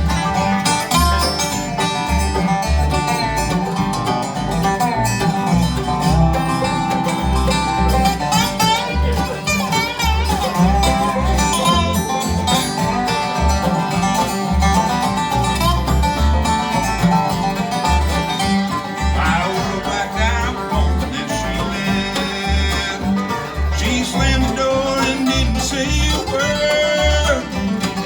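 Bluegrass band playing an instrumental break with banjo, guitar, mandolin, dobro and bass, the bass thumping out a steady beat under fast picked notes.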